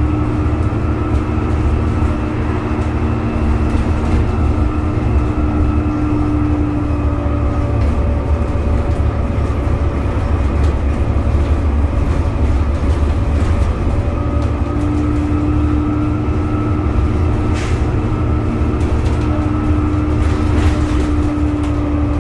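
Alexander ALX400 Dennis Trident double-decker bus cruising, heard from the lower deck: its Cummins ISCe diesel engine drones steadily and the rear axle whines at a steady pitch. The whine drops away for several seconds midway, then returns.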